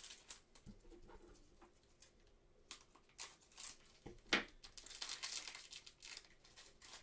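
Basketball trading cards being handled and flicked through in nitrile-gloved hands: a quiet run of short, irregular rustling and crinkling scrapes, the loudest about four seconds in.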